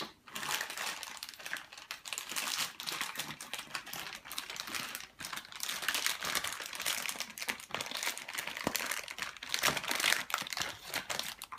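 Steady crinkling and rustling broken by many small, irregular clicks and taps: plastic toy pieces and their packaging being handled.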